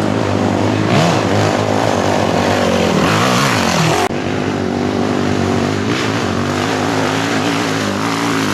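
Trail-bike engines running hard up a loose dirt climb, a steady low drone with the revs rising and falling. The sound changes suddenly about four seconds in.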